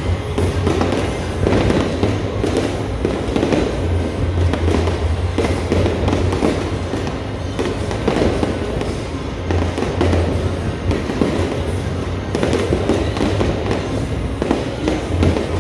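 Aerial fireworks display, shells bursting in quick succession: a continuous run of bangs and crackles, with music playing underneath.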